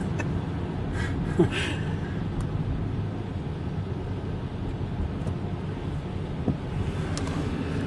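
Car driving on snowy roads, heard from inside the cabin: a steady low rumble of engine and tyre noise, with a few faint clicks.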